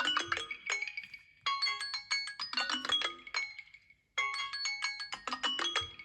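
Smartphone ringtone playing a short melody of quick notes. The phrase starts over about every two and a half to three seconds, with a brief gap between repeats.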